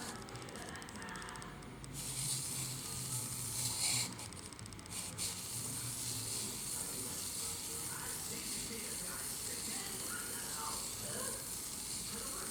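Scratchy hiss of a CPU die being rubbed back and forth on fine P1500-grit sandpaper, louder for a few seconds near the start.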